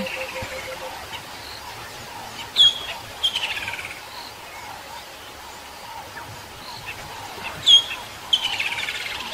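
A bird calling twice, about five seconds apart: each call is a sharp high note that drops steeply, then a quick falling trill lasting about a second, over a soft steady outdoor hiss.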